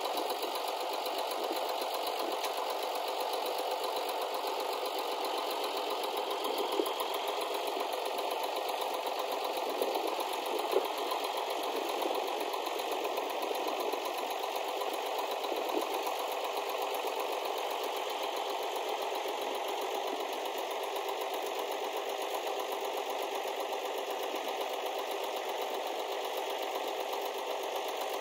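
Hesston 1880DT tractor's diesel engine running steadily, with a few light knocks along the way.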